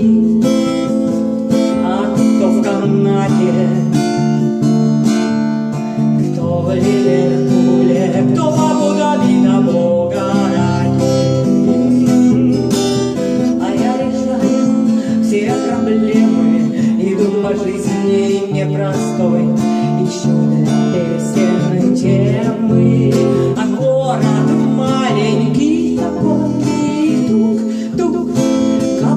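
Song accompaniment on strummed acoustic guitar, with a melody line running over it.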